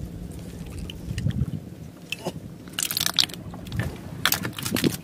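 A knife cutting through the strands of a fishing net to free an octopus: a run of short, sharp crunching cuts from about two seconds in, over a low steady rumble.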